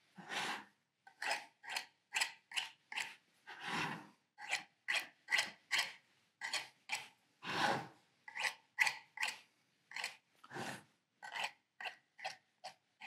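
Knife blade cutting excess shortcrust pastry off the rim of a tart tin: a run of short cutting strokes, about two a second, with a few longer strokes among them.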